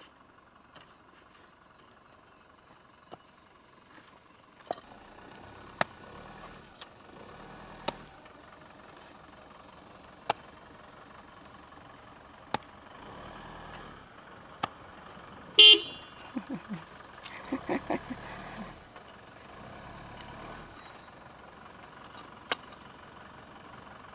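A long-handled digging tool striking stony soil in single sharp knocks every second or two, over a steady high insect drone. About two-thirds of the way in, a vehicle horn gives one short loud toot, followed by a few fainter short sounds.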